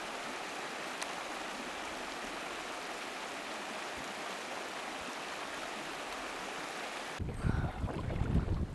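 Steady rushing of fast-flowing river water over a riffle. About seven seconds in it cuts off abruptly, giving way to gusty wind buffeting the microphone.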